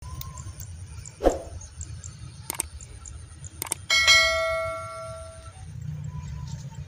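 Subscribe-button sound effect: a couple of sharp mouse-like clicks, then a loud bell ding about four seconds in that rings out over about a second and a half. Under it runs a low steady rumble, with a single thump about a second in.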